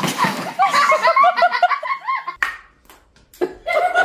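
People laughing in quick, pitched bursts, starting with a sudden loud burst of noise. The laughter breaks off a little past halfway with a sharp click, then starts again near the end.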